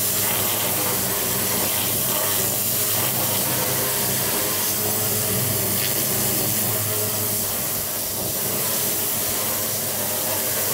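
Pressure washer blasting a high-pressure water jet onto a wooden garden table: a steady, loud spraying hiss with the machine's even low hum underneath.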